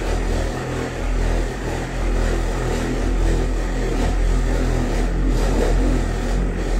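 Corded electric hand polisher running steadily, its foam pad buffing number three scratch remover into a clear plastic hockey-game dome.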